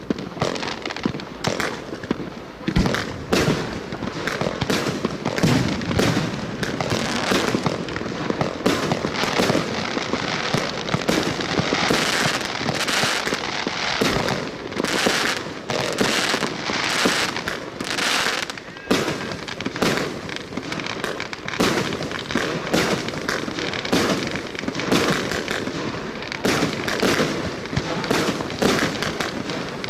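A 36-shot consumer fireworks cake with 25 mm (1-inch) shells firing. Launches and bursts follow each other without a break, about one or two a second.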